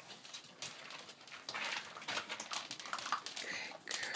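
A litter of chocolate Labrador puppies eating together from a shared food bowl: a busy, irregular run of quick clicks, smacks and chewing noises.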